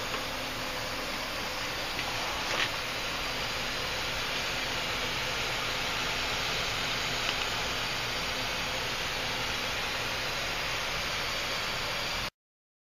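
Steady rushing hiss with a couple of faint clicks, cutting off suddenly near the end.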